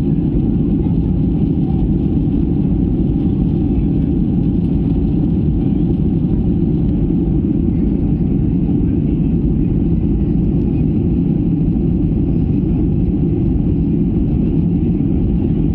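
Steady low roar inside the cabin of a Ryanair Boeing 737: jet engines and airflow during the climb after takeoff.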